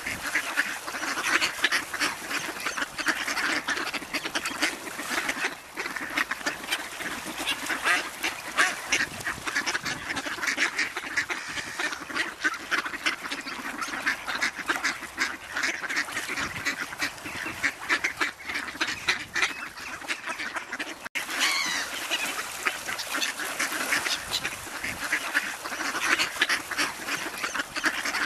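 Mallard ducks calling: a continuous busy chatter of quacks, breaking off for an instant about 21 seconds in.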